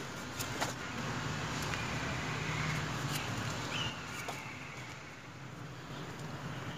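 Knife cutting and scraping the skin off a piece of elephant foot yam: faint scrapes and a few light knocks over a steady low background hum.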